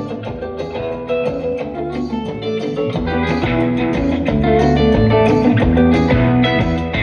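Guitar music with a strong bass line, played back through a vintage RFT L 3702 bass loudspeaker fitted with a new cone during a sound test. The music grows louder about three seconds in.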